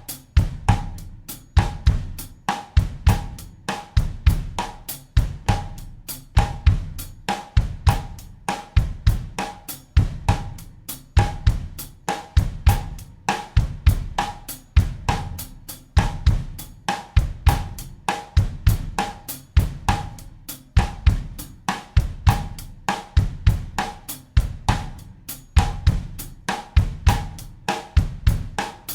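Acoustic drum kit playing a steady bossa nova groove in 4/4 at 100 beats per minute: a repeating loop of bass drum, snare and hi-hat/cymbal strokes.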